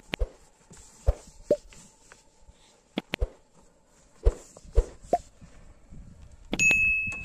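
Long thin wooden rolling pin working paper-thin bread dough on a flour-covered cloth, with about ten irregular sharp knocks and taps as the pin is handled, lifted and set down. Near the end a short steady ringing tone sounds.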